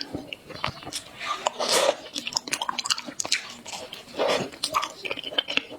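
A person chewing and biting food close to the microphone, with many short wet mouth clicks.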